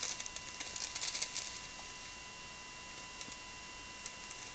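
Small plastic packets of diamond painting drills rustling and crinkling as they are handled and shuffled, busiest in the first second and a half, then only a few faint ticks.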